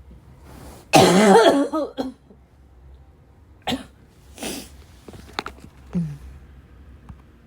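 A person's harsh, barking cough: one long, loud cough about a second in, then a few shorter, quieter coughs and throat-clearing sounds.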